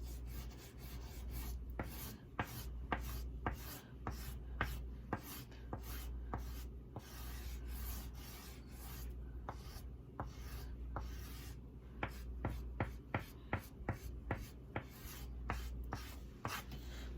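Oil pastel being stroked back and forth on sketchbook paper, a quick scratchy rub a few times a second, over a low steady hum.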